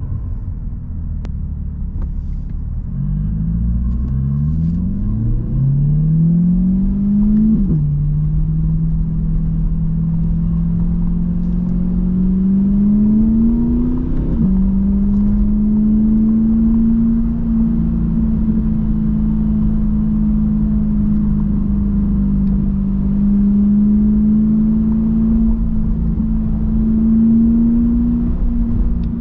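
Corvette C8's mid-mounted V8 accelerating through the gears. The revs climb and drop sharply with an upshift about eight seconds in, climb again and drop with a second upshift around fourteen seconds, then hold a steady cruise. A low rumble runs underneath.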